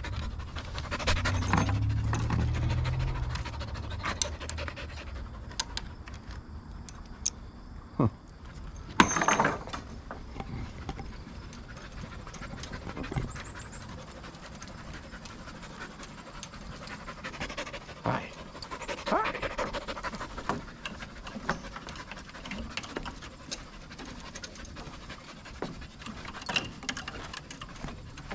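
Aussiedoodle puppy panting. Scattered clicks and knocks run throughout, with a louder burst of noise about nine seconds in.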